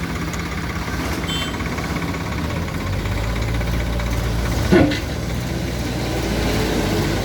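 Heavy diesel engine running steadily, its note growing louder and deeper about three seconds in; a short sharp knock about two-thirds of the way through.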